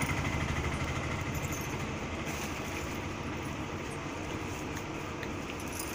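A motor vehicle's engine running with a low, fast-pulsing rumble that fades over the first couple of seconds, then settles into a steady hum.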